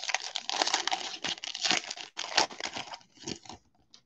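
A Topps baseball card pack's crinkly wrapper being torn open and crumpled by hand: a dense run of crackling for about three and a half seconds, then a few faint rustles.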